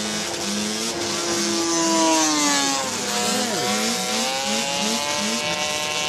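Two-stroke engines of several small racing snowmobiles (250 cc class) running hard together, their pitches gliding down and back up through a corner, with one engine note dropping sharply about three and a half seconds in. A lower engine note pulses about three times a second in the second half.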